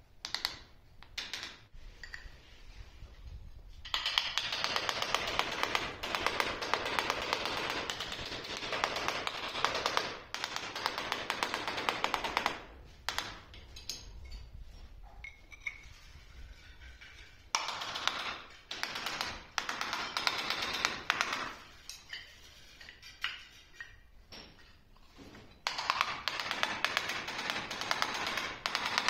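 Hand-held carbide tile scribe scratching across a ceramic tile in several spells of a few seconds each, a dense rasp of fine rapid ticks with quieter pauses between.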